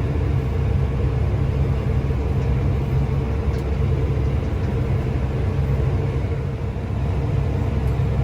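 Diesel engine of harvest machinery running steadily at constant speed, an even low drone.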